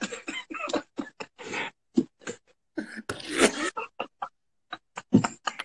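Hard laughter in many short, breathy bursts, with a louder voiced laugh about three seconds in.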